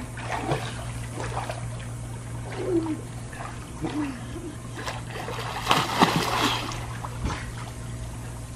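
Swimming-pool water splashing as children swim and thrash through it, in a series of short splashes with the loudest burst about six seconds in.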